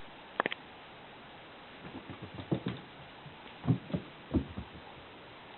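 A kitten playing fetch: a quick triple click, then a run of soft thumps and knocks as paws and toy hit the floor.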